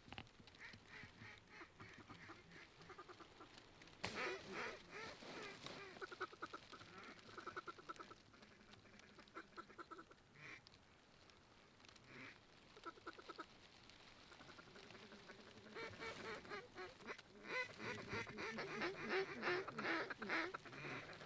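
Mallard-style quacking and rapid feed chatter in scattered bursts, thickening into steady chatter near the end.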